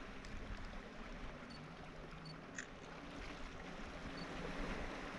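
Sea water lapping and trickling around a kayak, with a few small splashes.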